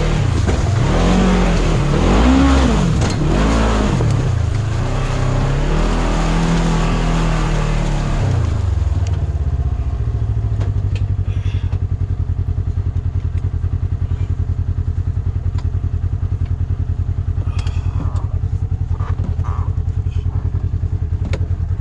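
Polaris RZR XP1000's twin-cylinder engine revving up and down in repeated bursts during a rock crawl, then dropping to a steady idle about nine seconds in.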